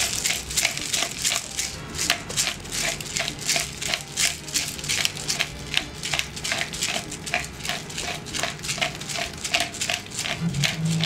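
Pepper grinder being twisted to grind black peppercorns: a fast, even crunching, about three grinds a second.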